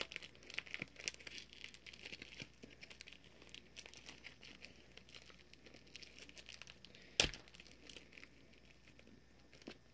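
Faint crinkling and rustling of a small plastic bag being handled and opened, with scattered small clicks and one sharper snap about seven seconds in.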